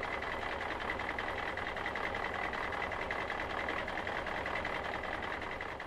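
Excavator's diesel engine running steadily under load, with a steady high whine over the engine noise.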